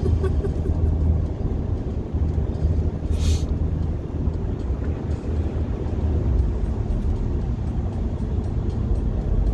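Steady low road and engine rumble inside a car's cabin while cruising at highway speed.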